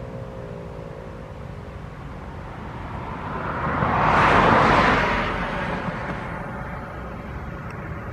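A vehicle passing by, a whoosh that swells and fades, loudest about four to five seconds in, over a steady low rumble. In the first second or so the last of a Federal Signal 2001-SRN tornado siren's falling tone dies away as it winds down.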